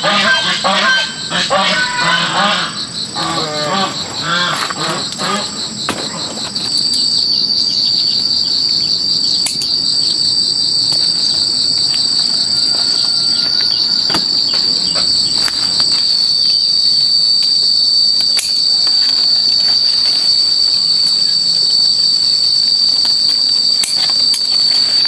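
Loud, steady, high-pitched drone of insects. In the first six seconds the call is rapidly pulsing; after that it becomes one continuous shrill tone that holds to the end.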